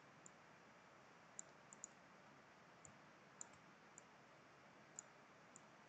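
Faint, irregular computer mouse clicks, about nine over a few seconds, against a low steady room hiss.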